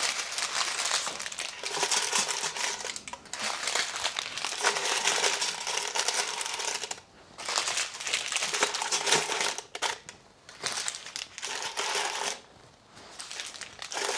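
Parchment paper packets crinkling and rustling as they are handled and laid into a stainless steel pressure cooker pot, in several bursts with short pauses between.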